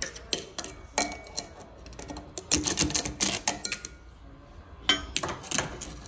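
Light metallic clicks and clinks, irregularly spaced and busiest around the middle, as a small inspection mirror is moved and knocked around a brass shower valve body and its copper pipe joints.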